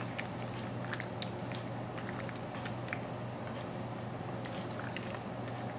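A wooden spoon working through pappardelle coated in cheese sauce in a baking dish: soft wet squishing with many small, scattered clicks, over a steady low hum.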